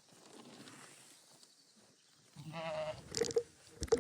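A sheep bleats once, a short quavering call, about halfway through. A few sharp clicks follow near the end.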